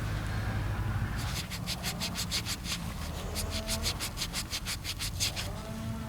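Rapid, even back-and-forth scraping or rubbing strokes, about six a second, starting about a second in and stopping shortly before the end, over a low steady hum.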